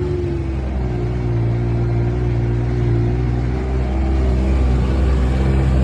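Vehicle engine running steadily under way, a low even drone with slight rises and falls in pitch.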